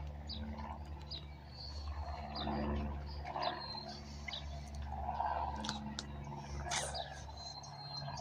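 Distant airplane passing overhead, a steady low engine drone, with birds chirping briefly at intervals.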